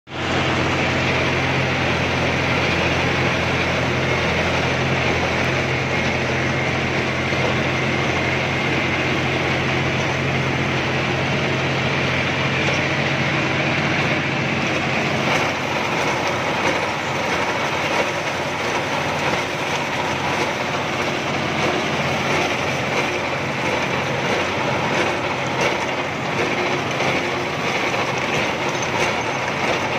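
John Deere 5075 4WD tractor's diesel engine running steadily under way, with a strong low hum. About halfway through, the sound turns rougher and more uneven.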